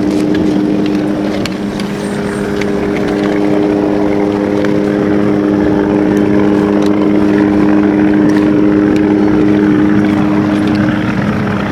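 Steady propeller-aircraft hum: several held tones over a rushing noise, with a few faint clicks.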